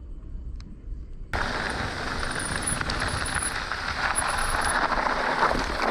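Trek Slash 9.8 mountain bike riding down a dirt trail: a steady rush of tyre and wind noise, with the bike rattling. It cuts in suddenly about a second in, after a faint low rumble.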